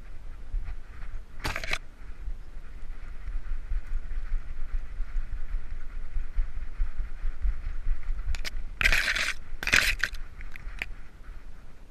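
Rubbing and thudding of a GoPro camera housing carried on a running dog. Brush scrapes loudly against the housing about a second and a half in, and twice more close together near the end.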